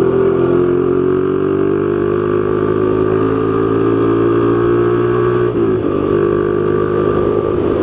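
Z200S motorcycle with an open Akrapovic Evo GP exhaust running hard at high revs, its note climbing slowly in pitch. About five and a half seconds in, the pitch drops suddenly and the exhaust note turns rougher.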